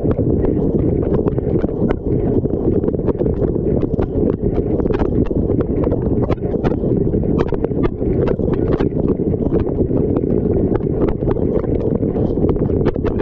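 Dishwasher wash cycle heard from inside the tub: water spraying and sloshing as a steady low, muffled rush, with many irregular sharp clicks and taps of water hitting hard surfaces close to the camera.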